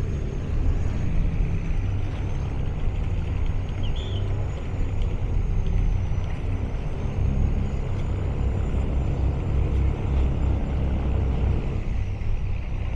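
Steady low rumble of a tugboat's diesel engine pushing a flat car ferry, with a faint high whine above it that wavers slightly in pitch.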